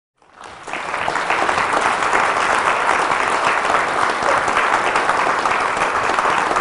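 Audience applauding, many hands clapping. It fades in over the first second and holds steady.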